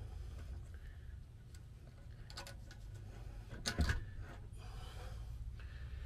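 Handling noises of a drop-in sink being pressed down into a sealant-lined countertop cutout: light taps and short rubbing scrapes, with one louder knock a little under four seconds in. A low steady hum runs underneath.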